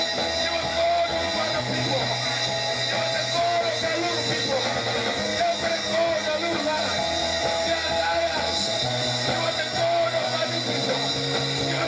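Church band music: held bass notes that change every couple of seconds under a wavering melody line.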